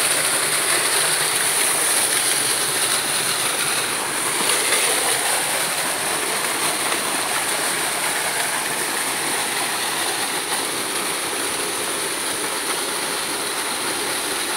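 Steady rush of a waterfall's falling water.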